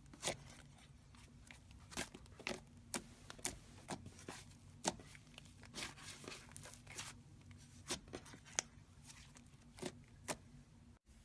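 Slime being squeezed and stretched by hand, giving irregular sticky pops and crackles several times a second, with a brief break near the end.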